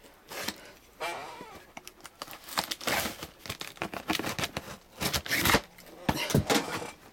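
Knife blade slitting packing tape along the seam of a cardboard shipping box: a series of short scraping, tearing strokes with the cardboard rustling.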